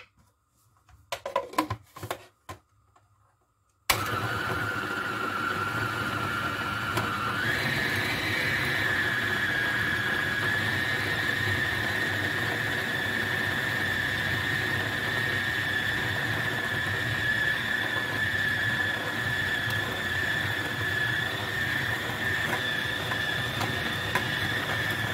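A few knocks and clicks, then a Moulinex food processor motor starts about four seconds in and runs steadily, grinding sardine fillets into a paste. Its whine steps up higher a few seconds after starting and then holds steady.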